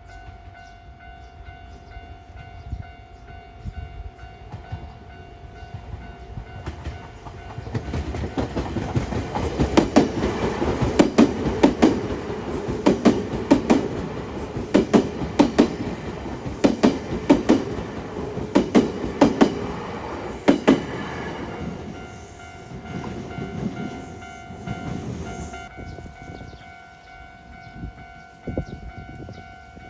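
A Nankai electric train passes over a level crossing, its wheels clacking over the rail joints in quick pairs for about twelve seconds. The crossing's warning bell rings as a steady tone before the train arrives and again after it has passed.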